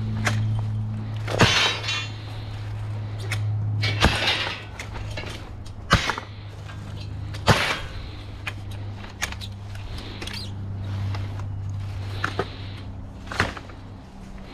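A steady low hum, with irregular sharp knocks and clinks over it, about five of them loud.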